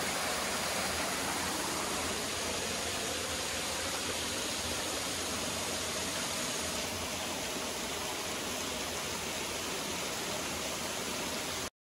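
A rocky mountain stream and small waterfall running: a steady, even rush of water that cuts off suddenly near the end.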